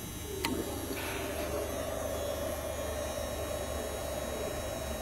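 A rotary selector switch on a GER grinding machine's control panel clicks, then a motor on the grinder starts and runs with a steady hum and tone.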